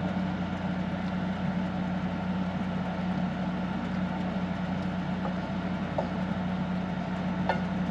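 Steady low hum of a running motor, unchanging throughout, with a few faint light clicks of cookware in the second half.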